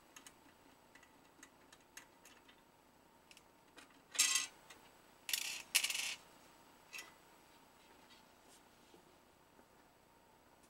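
Hands handling a square ceiling-light cover on a workbench: faint scattered clicks and taps, with two short scraping rubs about four and five and a half seconds in.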